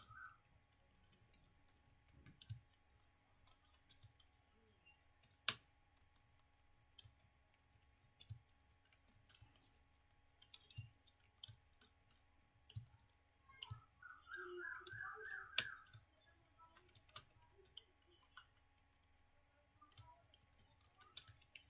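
Computer keyboard keys clicking faintly at an uneven, unhurried pace: slow typing, one keystroke at a time, with a sharper key strike about five seconds in.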